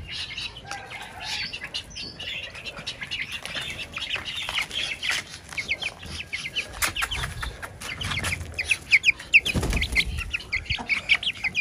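Shamo aseel chicks peeping: runs of short, high, falling peeps, busiest in the second half. A dull low thump comes near the end.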